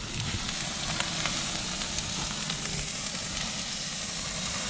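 Butter-basted lobster tails sizzling on a gas grill, the butter dripping into the flames: a steady hiss with scattered small crackles.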